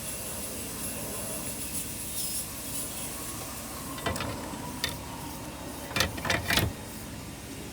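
A few sharp clicks and knocks from hand work on a car battery, over a steady hiss: one about four seconds in, another just before five, then three close together near the end.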